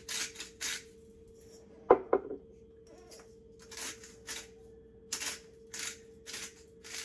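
Salt and pepper being ground over a pot in bursts of short rasping strokes, with two sharp knocks about two seconds in. A faint steady hum runs underneath.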